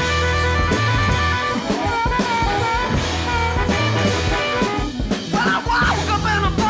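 Rock music with a drum kit and guitar; a voice starts singing about five seconds in.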